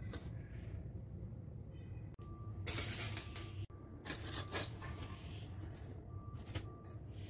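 Handling noises: dough rolls set down on a metal baking tray and a cloth drawn over them, heard as a few short rustling, clinking bursts, the loudest about three seconds in, over a steady low hum.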